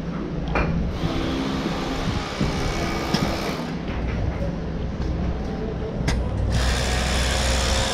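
Street noise with a motor vehicle engine running, broken by three short sharp clicks.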